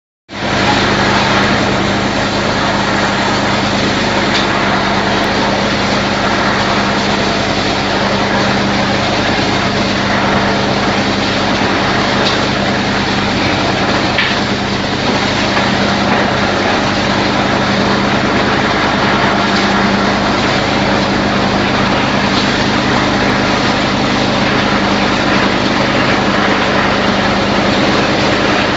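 Sawdust rotary dryer line running: a steady, loud machinery drone with a constant low hum from its drive motors.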